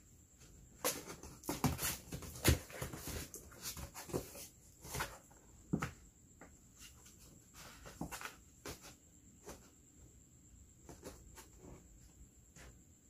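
Cats moving about in a cardboard box: irregular scratchy knocks and rustles against the cardboard, busy for the first few seconds and then thinning out to occasional clicks.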